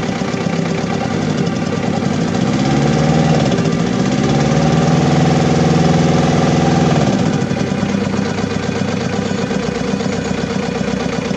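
Diesel engine idling, briefly revved from about two and a half seconds in, held higher for a few seconds, then dropping back to idle. The engine is misfiring and vibrating, which the owner puts down to a poor spray from the injector nozzle tips.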